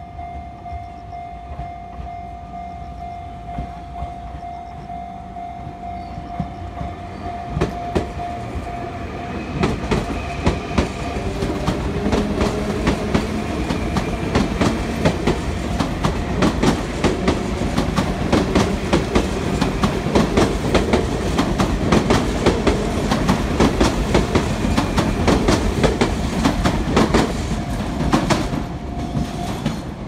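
Sotetsu electric commuter train passing close by, its wheels clattering over the rail joints in a fast clickety-clack that starts about ten seconds in, grows louder and stops shortly before the end. Before the train arrives a steady ringing tone from the level crossing is heard.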